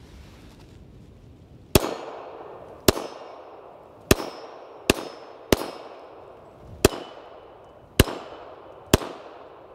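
Eight .380 ACP pistol shots from an IMEZ IJ70-17AH wide-body Makarov, fired at an unhurried pace of roughly one a second. Each has a short echoing tail, and a faint metallic ring follows a couple of them.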